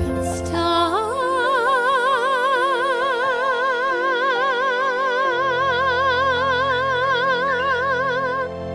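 Closing note of a children's show song: a singing voice glides up about a second in and holds one long high note with even vibrato over sustained backing chords, the held note ending near the end.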